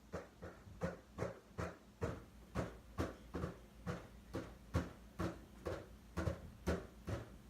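Rapid, rhythmic panting, about two breaths a second, starting suddenly and keeping an even pace.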